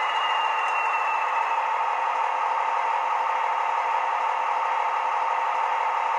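Class 43 Warship diesel engine sound from a model locomotive's sound decoder, played through its small speaker. A high turbo whistle falls slightly and fades out in the first second as the model comes to a stand, leaving the engine running steadily.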